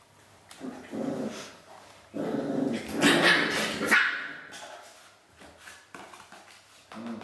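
A puppy's play growls and barks: a short growl about a second in, then a louder run of barks and growls from about two to four seconds in.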